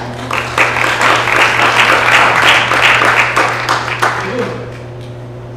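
Audience applauding at the close of a talk. The clapping starts at once, swells, and dies away about four and a half seconds in.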